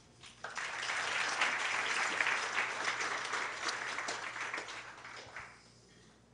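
Audience applauding after a talk, starting about half a second in and fading out about a second before the end.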